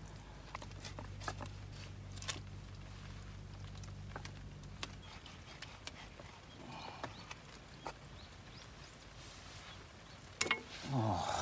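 A kitchen knife slicing raw koi fish meat on a wooden cutting board, with scattered knocks of the blade against the board. A low steady hum runs through the first half, and a short louder sound comes near the end.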